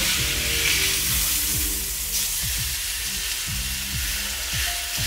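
Bone-in ribeye sizzling in a very hot ridged grill pan as it is seared and turned over with tongs: the final sear of a steak already cooked sous vide.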